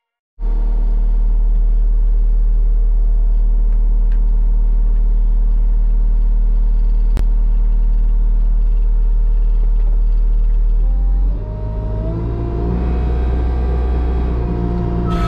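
Diesel engine of a New Holland 328 skid steer, heard from inside its cab, running steadily. About eleven seconds in, its note rises in pitch and turns rougher.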